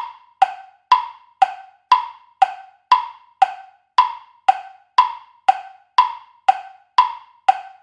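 Countdown clock tick-tock sound effect: sharp, hollow ticks about two a second, alternating between a higher and a lower pitch, stopping just before the end.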